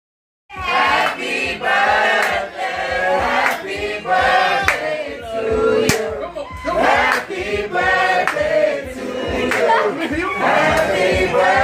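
A song with several voices singing over a beat, starting about half a second in.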